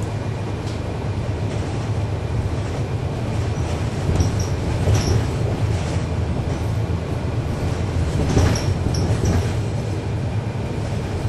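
Inside a 2011 NABI 40-SFW transit bus: its Cummins ISL9 inline-six diesel and drivetrain run with a steady low rumble. Rattles and brief high squeaks come about four to five seconds in and again about eight to nine seconds in.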